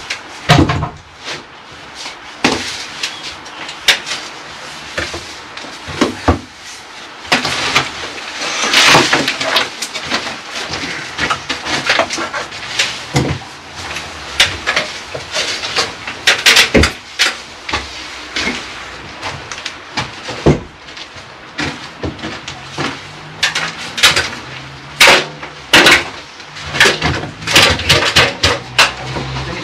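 Irregular knocks, taps and clatter of building work as tools and materials are handled and struck, some hits sharp and loud, coming at uneven intervals.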